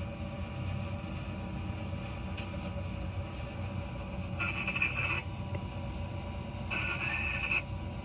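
Passenger train running with a steady low rumble, and a brief high squeal about four and a half seconds in and again near the end.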